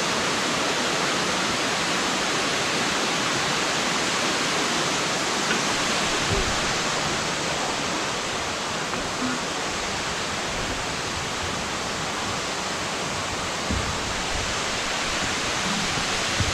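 Waterfall pouring in full flow: a steady, unbroken rushing of falling water, with a couple of faint low knocks about six and fourteen seconds in.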